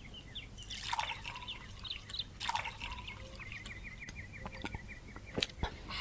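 Liquor being poured and splashing into a small glass, with birds chirping outdoors, including a quick run of short chirps in the second half.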